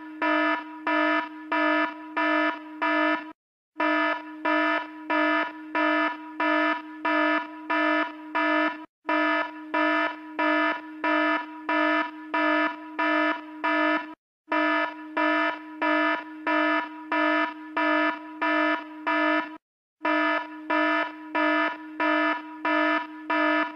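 Electronic alarm beeping: a harsh, buzzy tone pulsing about twice a second, in runs of about ten beeps separated by a brief silent break roughly every five seconds.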